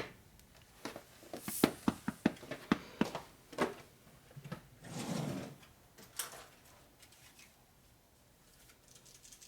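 Workshop handling noise: a quick run of sharp clicks and light knocks in the first four seconds, like small metal parts and tools being picked up and set down. A brief rustle follows about five seconds in, then a few faint clicks.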